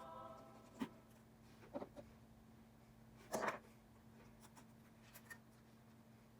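A few faint, scattered taps and small scrapes of hand tools and parts being handled on an iPhone XR under repair, the longest and loudest scrape about three and a half seconds in, over a low steady hum.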